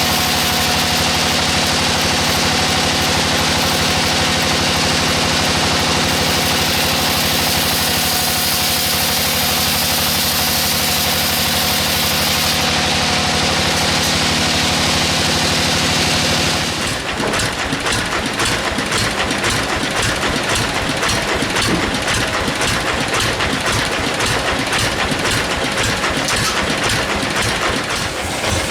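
A sawmill's engine running at a steady pitch; about two-thirds of the way through the sound changes abruptly to a rapid, rattling rhythm.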